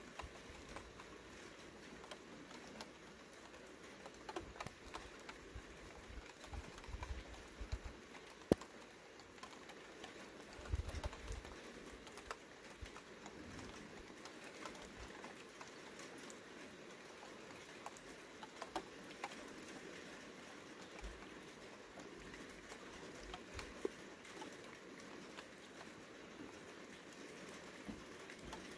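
Faint scattered patter of raindrops, with one sharp drip-like tick about eight seconds in, under faint bird calls. A few brief low rumbles come and go in the first half.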